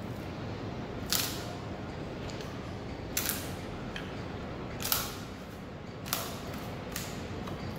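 Mallet striking the back of a froe whose blade is set in the top of a log, five sharp knocks one to two seconds apart, driving the blade down to split the log.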